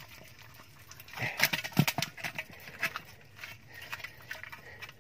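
Snakeheads and other fish thrashing and splashing in shallow water inside a buried earthenware jar as a hand grabs at them: a burst of sharp wet slaps about a second in, then scattered smaller splashes.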